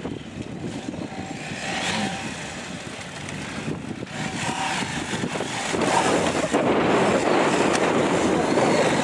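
Husqvarna Norden 901's parallel-twin engine revving on and off as the motorcycle rides a dirt and grass course, getting louder about six seconds in as it comes close and climbs over logs.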